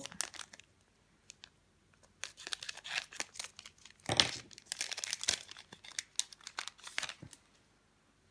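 Foil wrapper of a Japanese Pokémon Tidal Storm card booster pack being torn open and crinkled. After a short pause it gives a run of crackling rustles, loudest about four seconds in.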